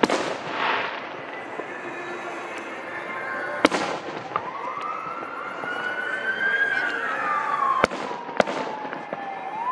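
Aerial fireworks shells bursting overhead: four sharp bangs, one at the start, one a little under four seconds in and two close together near the end. From about four seconds in, a steady tone in the background wails slowly up and then back down.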